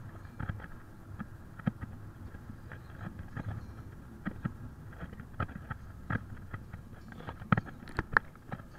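A car driving, heard from inside the cabin: steady low road and engine noise with irregular sharp clicks and knocks, the loudest a few near the end.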